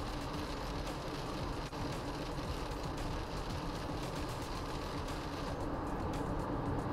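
Steady road and tyre noise inside a Subaru Forester's cabin at expressway speed on a wet road, with a low, even drone.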